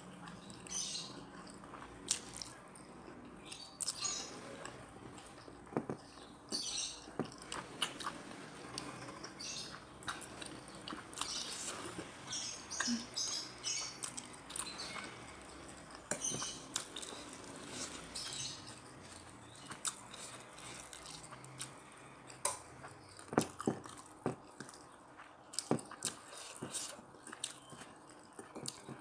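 Close-up mouth sounds of someone eating jengkol (dog-fruit beans) in chilli sauce with rice: irregular wet chewing, lip smacks and small clicks.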